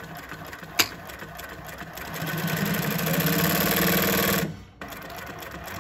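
JUKI LH-3528A double-needle lockstitch industrial sewing machine stitching through layered denim. It runs softly at first with a single sharp click about a second in, then sews at speed for about two and a half seconds with a steady hum and stops abruptly.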